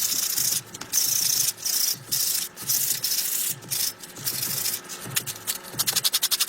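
Rust being scrubbed off metal by hand with an abrasive, in back-and-forth strokes of about half a second, turning into quick short strokes near the end.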